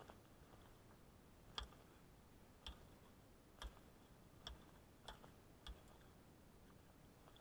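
Six faint, sharp knocks about a second apart over near silence.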